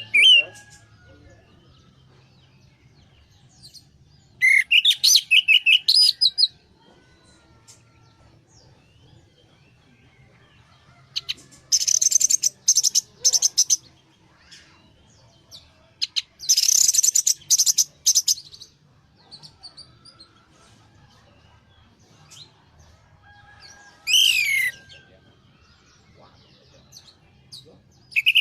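Orange-headed thrush song in four separate bursts of rapid, high-pitched warbled phrases a few seconds apart, the last a short rising sweep. A faint low hum lies under the pauses.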